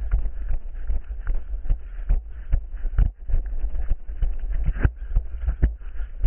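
Running footsteps on forest ground at a steady pace, about two to three strides a second, over a steady low rumble from the jostled, body-worn camera.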